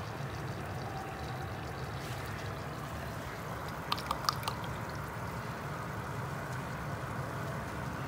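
Steady trickle of water circulating in aquarium tanks, with a quick run of a few sharp clicks about four seconds in.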